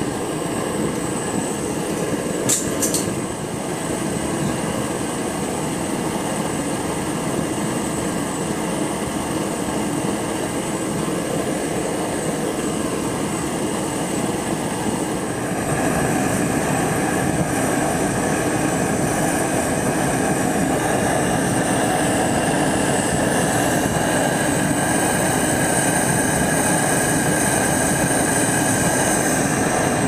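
Clayton and Lambert plumber's furnace burner running on vaporized Coleman fuel, a steady rushing noise from the pressurized flame. A brief sharp click comes a couple of seconds in, and the noise gets louder about halfway through.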